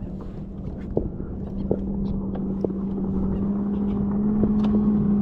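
A boat motor running with a steady hum that grows gradually louder, over wind and water noise, with a few light clicks and knocks.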